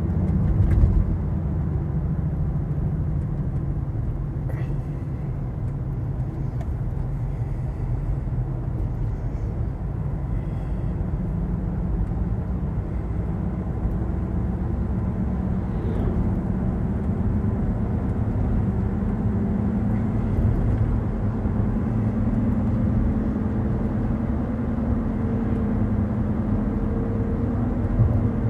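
Steady road and tyre rumble with engine noise inside the cabin of a 2016 Cadillac Escalade ESV at highway speed. A low hum grows a little stronger near the end.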